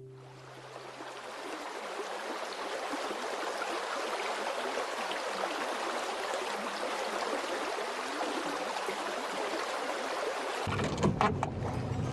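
Steady rush of flowing water that fades in at the start. Near the end a low hum and a few sharp clicks join it.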